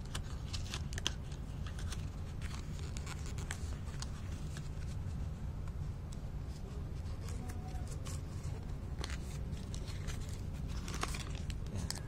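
A small cardboard box being handled and opened by hand: scattered scrapes, taps and rustles of card and paper, busiest near the start and again near the end, over a steady low hum.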